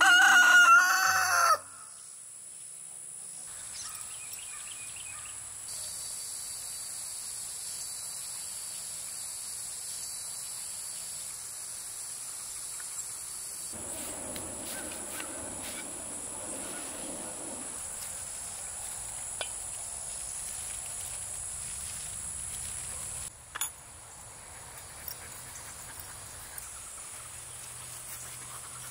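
A rooster crows once at the start, the loudest sound. After it a steady high-pitched buzz of summer insects goes on, with a second insect's buzz joining from about six to thirteen seconds.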